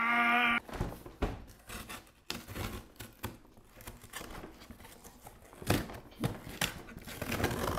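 A knife blade cutting and tearing through a corrugated cardboard box, with irregular scraping, crackling and ripping and scattered clicks, loudest near the end. A short pitched squeal cuts off about half a second in.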